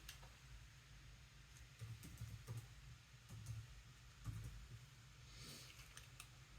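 Near silence with a few faint, scattered clicks and light taps from small hand tools and parts of a Scubapro Air 2 being handled during a rebuild, over a low steady hum.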